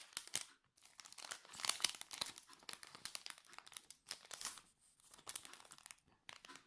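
Foil wrapper of a Yu-Gi-Oh booster pack crinkling as it is cut open with scissors and pulled apart, in an irregular run of crackles and rustles.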